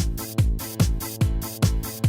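Electronic dance music: a steady kick drum about two and a half beats a second, each hit dropping in pitch, under held synth chords with bright cymbal hits between the beats.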